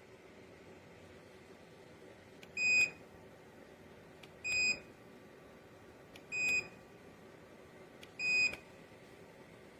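Electronic control-panel beep of a JIBUFI 1500W PTC space heater, sounding four times about two seconds apart. Each beep is short and on one high pitch, over a steady faint hiss.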